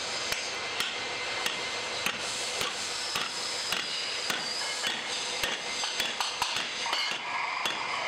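Small hammer tapping on a cast ceiling-fan motor housing: sharp metallic taps, about two a second and irregular, over a steady workshop din.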